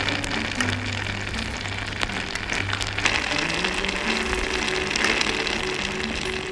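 Steady sizzling hiss of a tiny clay pot of water boiling on a miniature stove, with small clicks of a metal slotted spoon against the pot as the cauliflower florets are lifted out. Background music plays underneath.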